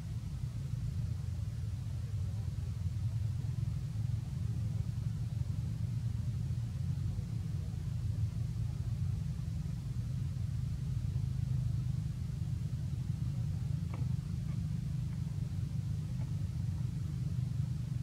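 A steady low rumble, with a faint click about fourteen seconds in.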